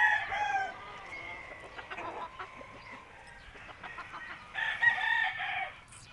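Roosters crowing: one crow trails off in the first second, and another crow of about a second comes about four and a half seconds in.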